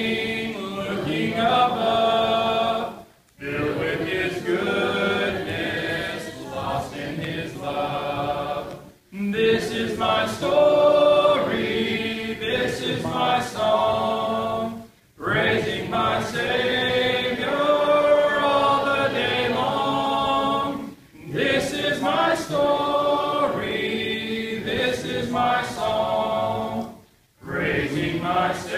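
Congregation singing a hymn without instruments, led from the microphone by a male song leader. The singing comes in lines of about six seconds, each followed by a brief pause for breath.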